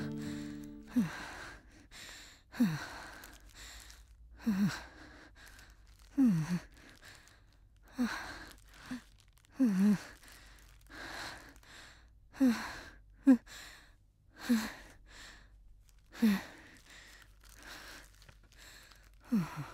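A person breathing heavily in a run of sighs. Each breath carries a short voiced sound that falls in pitch, coming about once every one and a half to two seconds.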